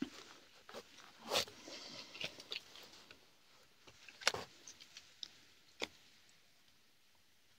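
A few faint, scattered rustles and clicks, the clearest about a second and a half in, just after four seconds and near six seconds, then near quiet.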